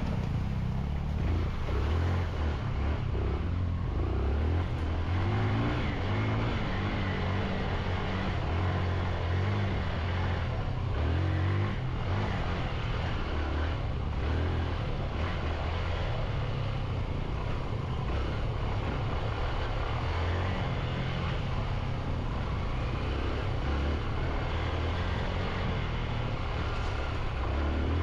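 Motorcycle engine running while being ridden up a rough trail, its pitch rising and falling with the throttle.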